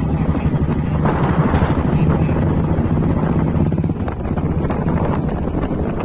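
Motorcycle engine running as the bike rides along a dirt track, a steady low hum with rough rumble that eases a little about four seconds in.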